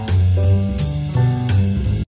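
Background music with a steady beat: a bass line and sustained notes over regular drum hits.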